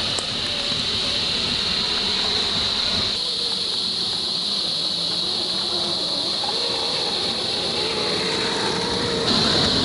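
Small 35T brushed electric motor and gears of a 1/10-scale RC rock crawler whining as it crawls over rocks, the pitch wavering with the throttle. A steady high-pitched insect chorus runs underneath.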